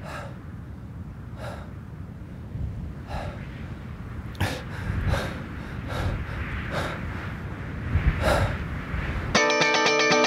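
A person's heavy breathing, one breath about every second and a half at first, then quicker, over a steady low wind rumble. About a second before the end a held musical chord comes in.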